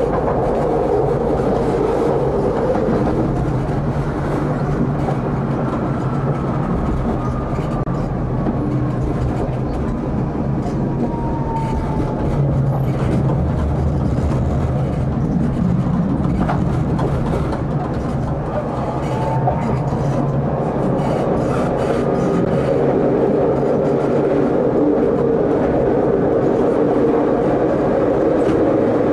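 Tram running on its rails, heard from the driver's cab: steady wheel and rail rumble, with a faint motor whine that falls in pitch and later rises again as the tram eases off and picks up speed. A single click about halfway through as the wheels cross a set of points.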